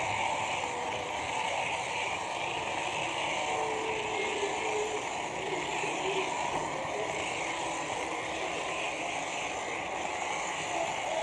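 Steady running noise of an H0-scale model train carrying the camera as it rolls over Märklin C-track, heard under an even hiss.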